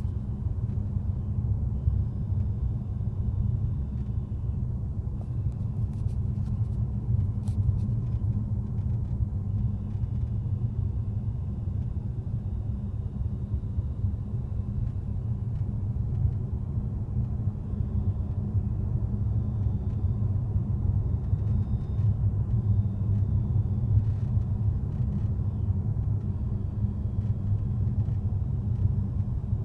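Tesla Model S driving slowly under light power: a steady low rumble with a faint high-pitched whine that comes and goes, and a few short squeaks or clicks. The whine is the one that shows up below about 50 km/h and under 10 kW.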